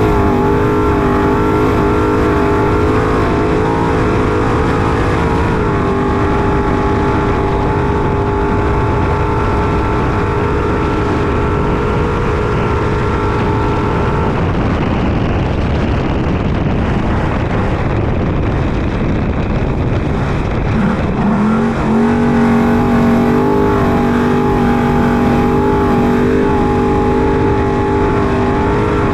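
Trophy truck's engine running hard at a steady high pitch, heard from on board over a heavy rumble of tyres and chassis. About halfway through, the engine note sinks into a rough rushing rumble for several seconds. It then comes back with a quick rise and holds steady.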